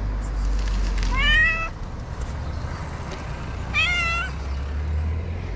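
Ginger cat meowing twice, about a second in and again near four seconds, each meow rising in pitch and then held briefly. A steady low rumble runs underneath.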